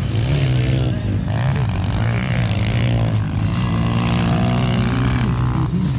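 Motocross bike engines running hard on a dirt track, their pitch rising and falling as the riders rev and shift through the gears.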